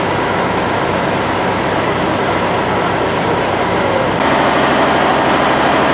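Fire engine's pump engine running steadily under a broad rushing noise. About four seconds in, the sound shifts abruptly and becomes brighter and slightly louder.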